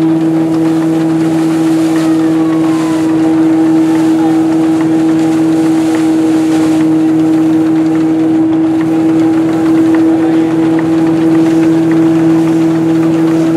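Vintage belt-driven threshing mill running at working speed, a steady droning hum that holds one pitch while sheaves are fed into its drum.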